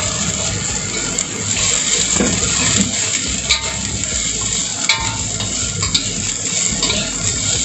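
Long beans and carrot pieces, just tipped into hot oil in a wok, sizzling steadily as a metal spatula stir-fries them, with a few sharp clinks of the spatula against the pan.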